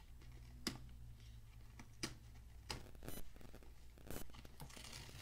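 GoPro Hero 9 retail box being opened and handled: scattered faint clicks and taps, then a soft rustle near the end.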